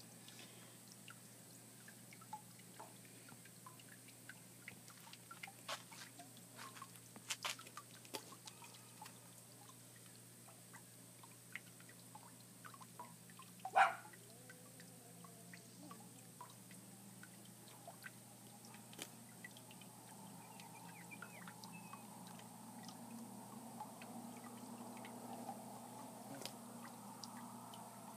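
Faint, sparse clicks and taps from a knife and gloved hands working a rattlesnake carcass on a concrete floor, with one sharper knock about halfway through. A low steady hum runs underneath and grows a little louder in the second half.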